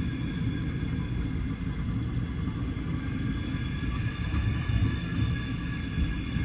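Passenger train rumbling along the track, heard from inside the sleeper carriage, with a steady low rumble and a faint, even high-pitched hum over it.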